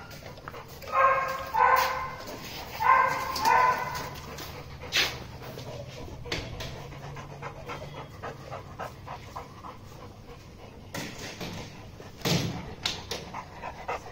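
A dog gives four short pitched barks in two quick pairs, then pants.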